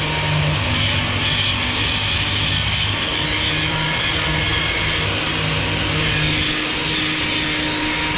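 Corded angle grinder running at a steady pitch while grinding rust off the steel chassis rails of a horse trailer.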